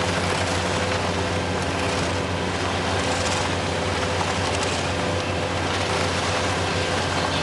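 A heavy engine running steadily at a constant speed: a low, even hum with a dense mechanical noise over it, unchanging throughout.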